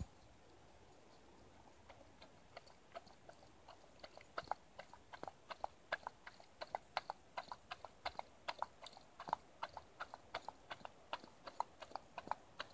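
A dog chewing and crunching on something in the grass: faint, crisp, irregular clicks that start sparsely and become more frequent, several a second, about four seconds in.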